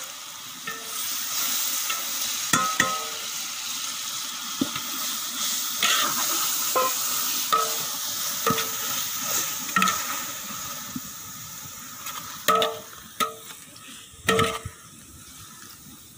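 Onion-and-tomato masala sizzling in a large aluminium pot while it is stirred, a metal ladle clinking and scraping against the pot's sides at irregular intervals.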